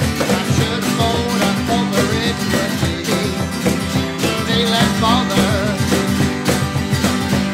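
A small acoustic band playing a country-blues number: strummed acoustic guitars over a steady cajon beat, with a guitar playing a melody line on top.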